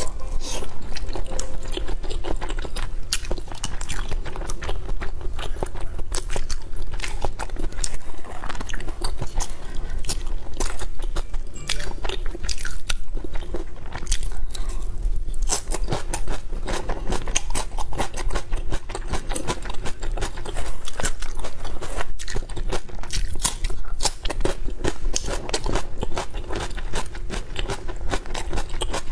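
Close-miked biting, crunching and chewing of chili-oil-soaked skewered food such as lotus root slices and vegetables. The crunches come thick and irregular throughout, with wet chewing between them.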